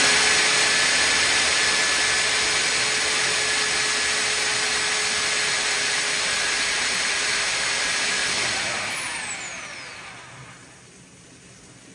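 A drain-cleaning machine's electric motor runs steadily with a loud hiss, then is switched off about nine seconds in and winds down with a falling whine.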